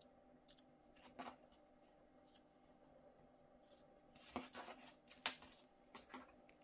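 Scissors snipping through the strand ends of a T-shirt-yarn tassel, trimming them level: a handful of short, separate cuts, the loudest about five seconds in.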